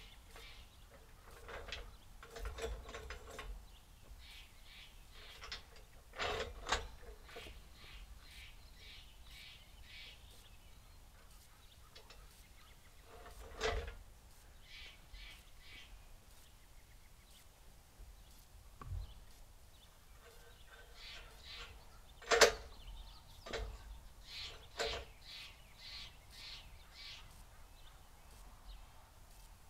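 Scattered metallic knocks and clanks from work on the steel track of a Woodland Mills HM126 bandsaw mill and its blocks, the sharpest about two-thirds through. Birds chirp in fast runs of short repeated notes in the background.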